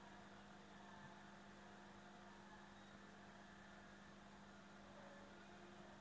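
Near silence with a faint, steady hum from the running LG side-by-side inverter refrigerator.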